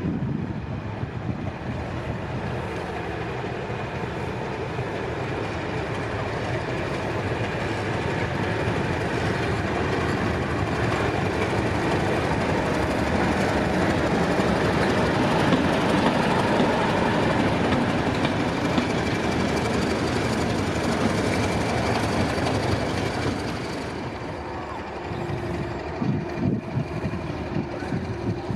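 British Rail Class 31 diesel-electric locomotive under power, its engine working along with wheels running on the rails. The sound builds to its loudest about halfway through as it runs close by, then eases off.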